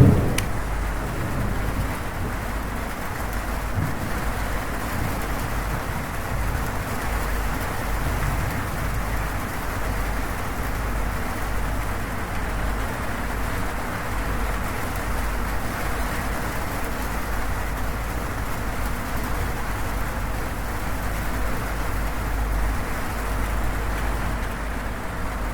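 Steady heavy rain on a zinc roof, with a low rumble underneath. The tail of a thunderclap fades out in the first second.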